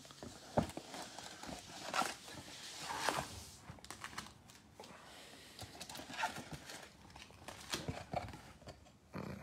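Trading card packs and a cardboard box being handled: quiet rustling of the pack wrappers and cardboard, with light taps as packs are set down on a table, in irregular bursts.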